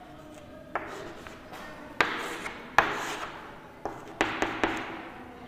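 Chalk on a chalkboard during writing: about half a dozen sharp taps as the chalk strikes the board, each followed by a short scratch of the stroke.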